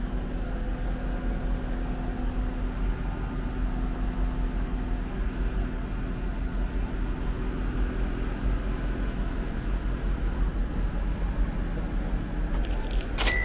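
Steady low rumble with a faint hum beside a snack vending machine, with a short metallic clank that rings briefly near the end.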